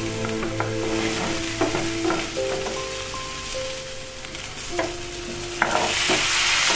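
Sausage slices and green beans frying and sizzling in a nonstick frying pan, with a wooden spatula knocking and scraping as they are stirred. The sizzle swells louder near the end as the food is turned.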